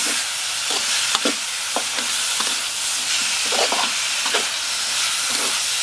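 Thick shrimp-paste mixture sizzling in a metal wok while a spatula stirs it, scraping across the pan about twice a second over a steady frying hiss.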